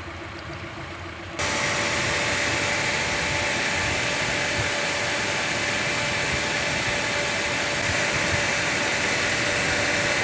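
Suzuki Eeco's electric radiator cooling fan switching on suddenly about a second and a half in and running with a steady whoosh and hum over the idling engine, then switching off and winding down with a falling hum near the end. It is cycling with the engine at operating temperature.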